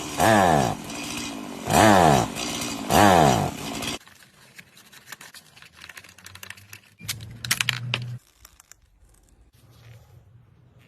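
Chainsaw pull-started three times in quick succession, each pull a swooping whir of the engine turning over without catching, typical of a saw with a starting problem. Then light clicks and rattles of the saw being handled, with a short low hum near the middle.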